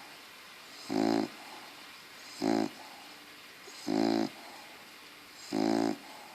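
A bulldog snoring in its sleep: four loud, rasping, pitched snores on the in-breath, evenly spaced about a second and a half apart, with quiet breathing between them.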